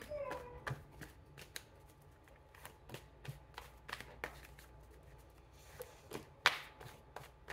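A deck of tarot cards shuffled by hand: a quiet run of soft card flicks and small clicks, with one sharper tap near the end.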